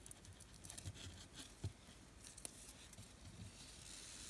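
Faint handling noise of Venetian blind cord being threaded through the loops of a knot by hand: small scattered clicks and rustles, with a soft swish near the end as the cord slides through.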